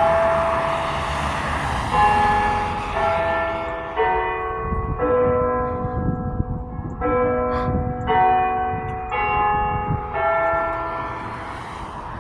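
Church bells chiming a tune, a new note of a different pitch about every second, each note ringing on into the next.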